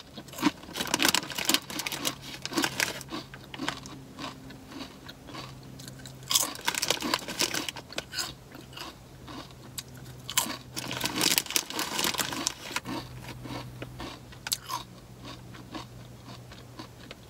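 Crunching and chewing of Sun Chips, wavy multigrain chips. The bites come in about three bursts of loud crackly crunches, with softer chewing in between.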